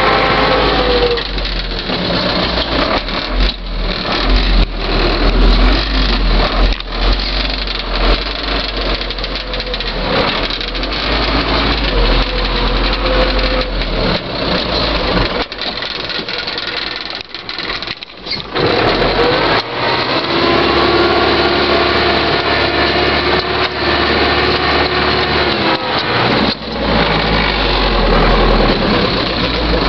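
Zetor 7341 Super Turbo tractor's turbocharged diesel engine running under load, heard from inside the cab while it pushes snow with a front plough blade. The engine note rises and falls, drops briefly just past the middle, then holds a steadier pitch for several seconds.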